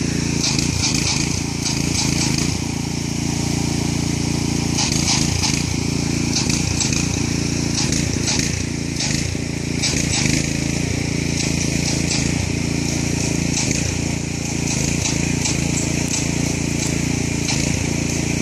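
Small engine running steadily at an even pitch, with high hissing and ticking coming and going over it.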